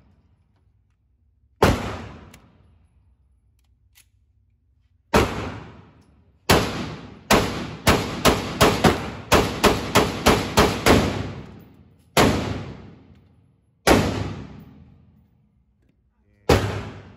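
Semi-automatic pistol firing at a shooting range, each shot followed by a ringing echo. It starts with single shots a few seconds apart, then a fast string of about ten shots at roughly three a second, then a few more spaced shots.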